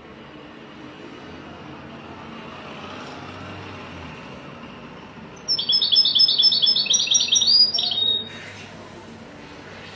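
European goldfinch singing: a burst of about two and a half seconds of quick, repeated high chirping notes, starting a little past halfway through, over a faint low hum.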